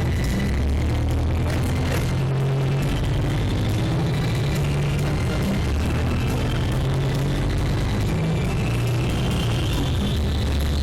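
Music with a prominent bass line moving in held notes, at an even level.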